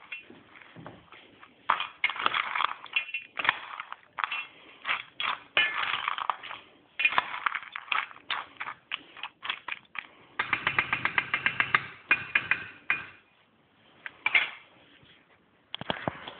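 A metal spoon stirring and scraping dog food in a stainless steel bowl, with irregular clinks and scrapes against the sides. About ten seconds in comes a quick run of rapid, even clinks lasting about two seconds, and near the end a few sharp knocks as the bowl is set down.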